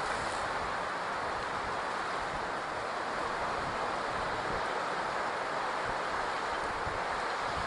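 Steady wash of surf and wind on an open beach, with some wind noise on the microphone.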